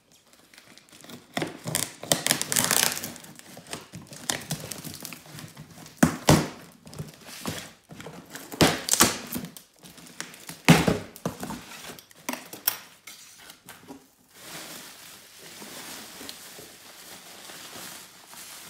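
Cardboard parcel being opened by hand: the packing tape is cut and pulled away and the flaps are pushed open, in irregular scrapes and rustles with a few sharp, loud noises. Toward the end comes a steadier crinkling of bubble wrap as it is lifted out.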